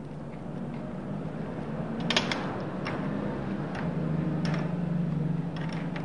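Scattered sharp metallic clicks and clinks as a nut and washer are worked onto a swing bolt of a cable blowing machine's chain pusher unit, over a steady low hum.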